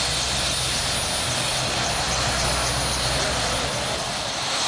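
Steady drone of engines with a low rumble and constant noise, the sound of vehicles running at an interstate wreck scene.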